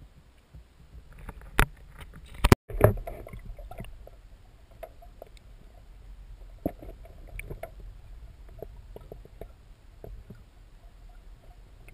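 A few knocks of handling, then a splash about two and a half seconds in as the action camera goes into the lake water. After that the sound is muffled underwater noise with scattered faint clicks and taps.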